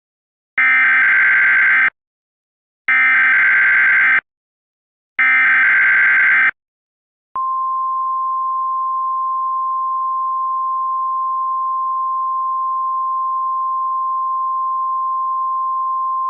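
Emergency Alert System SAME header: three digital data bursts about a second long each, then about seven seconds in the steady single-pitch 1050 Hz NOAA Weather Radio warning alarm tone starts and holds. It marks the start of a new alert message, a severe thunderstorm warning.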